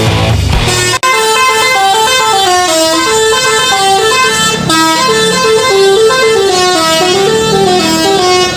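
Basuri telolet bus horn playing a quick tune: loud trumpet-like notes stepping up and down in a melody, with a brief cut about a second in.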